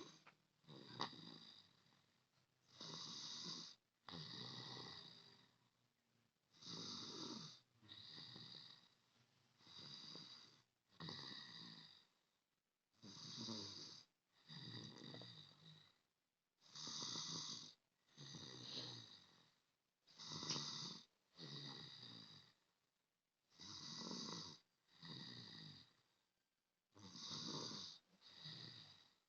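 A sleeping person snoring steadily, each breath in and out heard as a pair of snores, about one breath every three and a half seconds.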